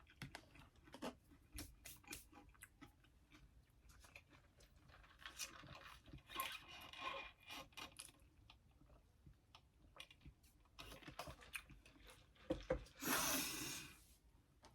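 Close-up chewing of crispy fried mac 'n cheese bites, with many small crunches and wet mouth clicks, and a louder crunchy burst near the end.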